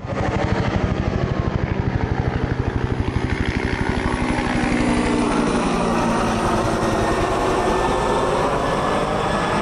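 Helicopter passing low overhead: a fast, even chopping beat from the rotor blades with an engine whine over it. The beat is strongest in the first few seconds, then evens out into a steady running sound.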